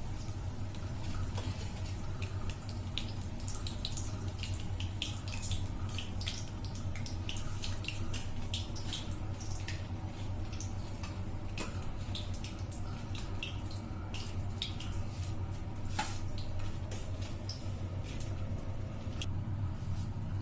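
Breadcrumb-coated rice balls frying in hot oil: a continuous crackling sizzle with scattered sharp pops, over a steady low hum.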